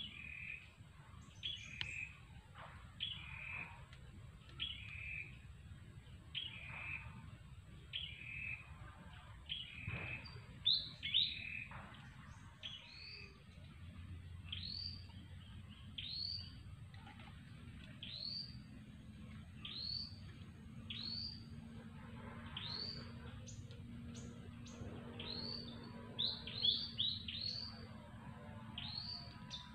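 Wild birds calling: short two-part notes repeated about once a second, then from about ten seconds in a different call, a high note that bends downward, repeated every second or so with a few quick ones close together near the end. A faint low rumble lies underneath.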